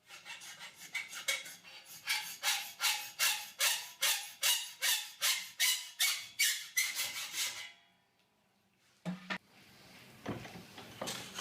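Hacksaw cutting a V cut into steel cable tray, in regular strokes of about two to three a second, each stroke making the tray ring. The sawing stops about eight seconds in, followed by a single knock.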